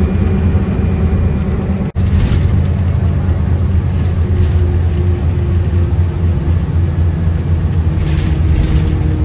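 Loud, steady low engine rumble. A faint tone slowly falls in pitch over the second half, and a hiss swells briefly about two seconds in and again near the end.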